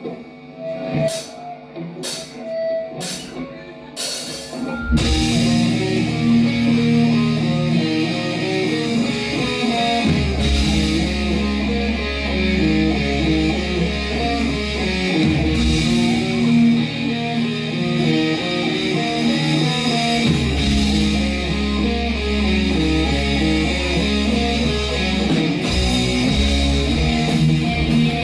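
Heavy metal band playing live: a few sharp hits open it, then distorted electric guitars, bass and drum kit come in together about five seconds in and play on at full volume.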